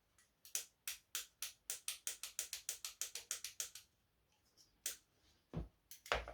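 A quick run of about twenty sharp clicks, closing up to about six a second, then a few single clicks and knocks near the end.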